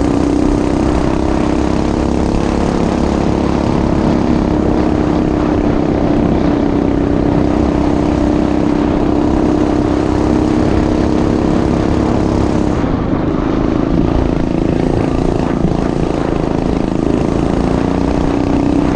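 A vehicle engine running steadily under way, a continuous drone at an even pitch that drops slightly about 13 seconds in.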